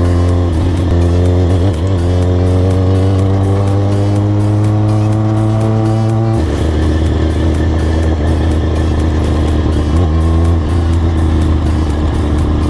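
Kawasaki Ninja ZX-6R 636's inline-four engine under way on gravel. Its revs climb slowly, drop suddenly about six seconds in, and then hold steady.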